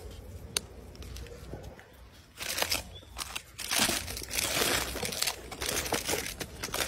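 Plastic snack wrappers crinkling and rustling as monkeys grab wrapped cakes out of a cardboard box; the crinkling starts about two and a half seconds in and becomes dense and busy.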